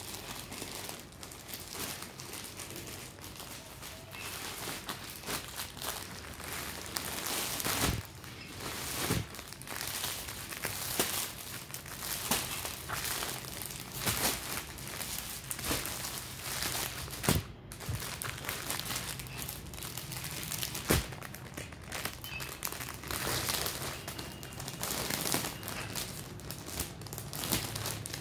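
Plastic packaging crinkling and rustling as it is handled: a grey courier bag opened and folded clothes in clear plastic wrapping pulled out. The rustling is irregular, with a few sharp clicks.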